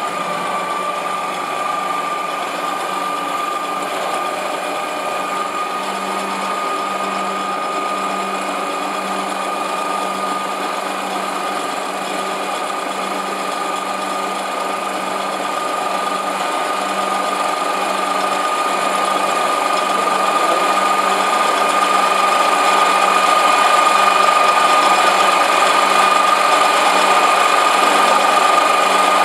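Lathe running, its spindle spinning a wooden cylinder while the tool in the tool post cuts it, with a steady whine throughout. It gets louder around the middle and stays louder to the end.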